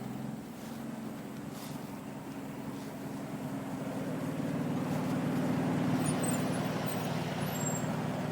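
A motor vehicle's engine running steadily, growing louder over the first half.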